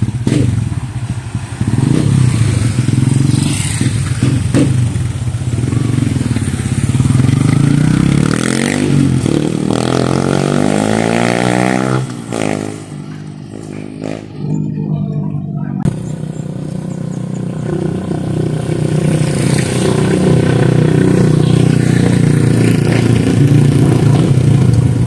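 Yamaha Sniper 150 single-cylinder four-stroke engine running through a Replica Pro aftermarket exhaust. About ten seconds in its pitch rises, then drops, and it goes quieter for a few seconds before running steadily and loudly again.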